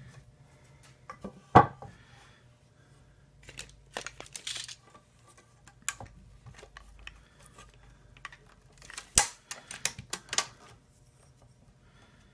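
Scattered knocks, clicks and rattles of a tape measure, pencil and 2x4 lumber being handled on a wooden workbench. The loudest knock comes about a second and a half in, with a quick run of clicks around nine to ten and a half seconds.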